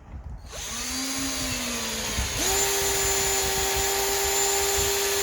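Bauer cordless hammer drill running as it drives a screw. The motor whine starts about half a second in, steps up to a higher, steady speed a couple of seconds later, and holds there.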